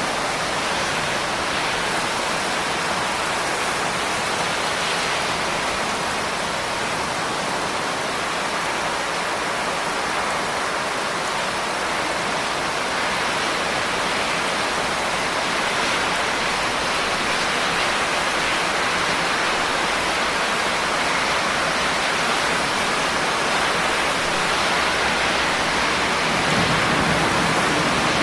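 Steady, continuous rain hiss, with a low rumble building in the last couple of seconds.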